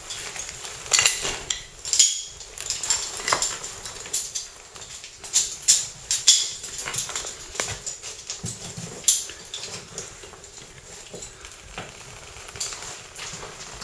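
Metal caving gear (carabiners and other hardware on a caver's harness) clinking and clanking irregularly, with scuffing and rustling as the caver handles the rope and moves over rock.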